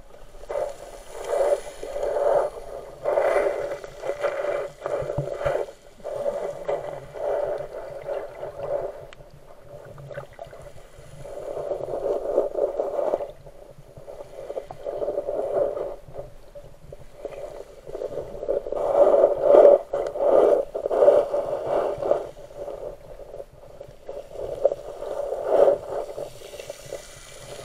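Muffled water movement picked up through an action camera's waterproof case held underwater, swelling and fading every second or two, with a few sharp knocks.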